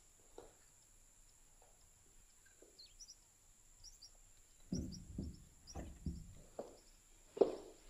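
Footsteps on a wooden floor, a run of irregular thuds that starts about halfway through and is loudest near the end. Faint bird chirps come in just before them.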